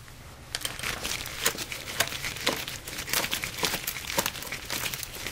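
Worm-gear hose clamp on a throttle body air hose being loosened with a hand tool: a rapid, irregular run of clicks and crinkling that starts about half a second in and keeps going.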